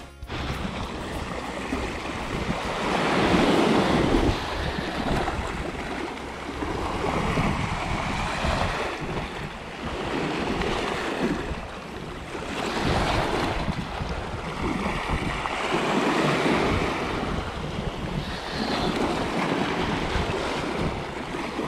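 Sea waves washing over a rocky shoreline, the surf swelling and easing every few seconds, with wind buffeting the microphone in a low rumble.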